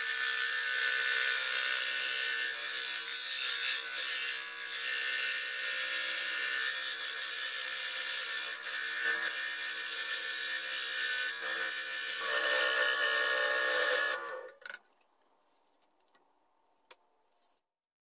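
Scroll saw running steadily with a constant hum, its reciprocating blade cutting thin plywood. It cuts off abruptly about three-quarters of the way through, leaving near silence with one faint click.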